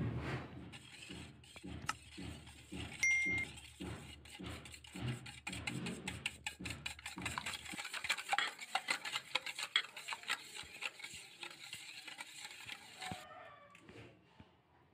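Wire whisk beating an egg into milk in a stainless steel bowl: regular strokes clinking against the metal, turning into fast rattling clicks about halfway through and stopping shortly before the end.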